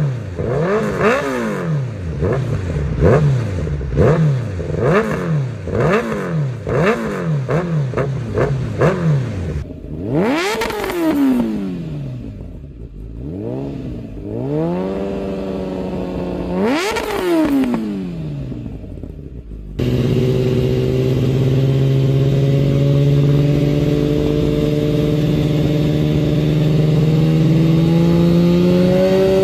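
A motorcycle engine revving up and down over and over, about once a second, then giving two longer revs. About two-thirds of the way through the sound cuts abruptly to a steady engine note that climbs slowly in pitch.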